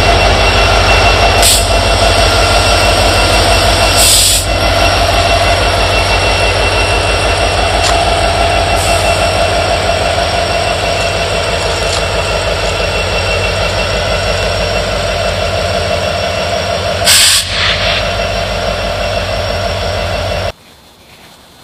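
BNSF diesel-electric locomotive's engine running close by, a deep rhythmic throb with steady whining tones over it, as it moves slowly past at the head of its train. Three short bursts of noise break in, and near the end the sound cuts off abruptly to a much quieter background.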